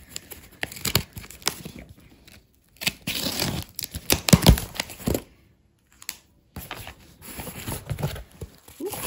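A parcel's packaging being torn open by hand, with paper rustling and crinkling, in irregular bursts with a short pause after the loudest rip about halfway through.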